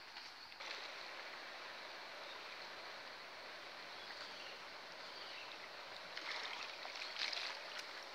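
Steady rush of a muddy river flowing past the bank, coming in suddenly about half a second in. Between about six and eight seconds in, dry twigs and brush rustle and crackle as someone pushes through them.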